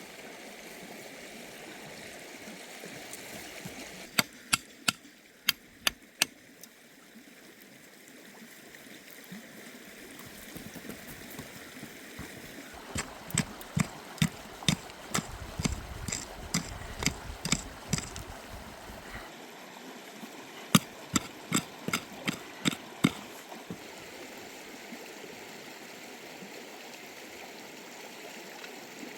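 Steady rushing water, with three bursts of sharp clicking knocks, each a quick run of about six to a dozen strikes.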